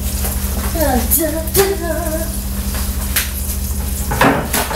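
A woman humming a few wordless, wavering notes, with a few sharp clicks or knocks, over a steady low hum.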